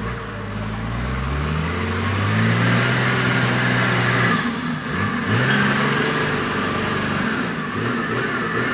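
Off-road 4x4's engine revving hard as it ploughs through a flooded, muddy track: the pitch climbs over the first couple of seconds, drops briefly around the middle and climbs again, with a high whine above it.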